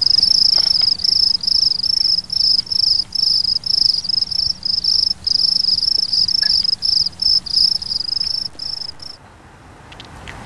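Cricket chirping in a loud, high trill, an even run of short chirps about two or three a second, stopping abruptly about nine seconds in.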